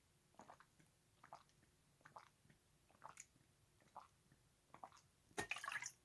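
Faint wet mouth clicks and smacks, one about every second, with a short louder burst of noise about five and a half seconds in.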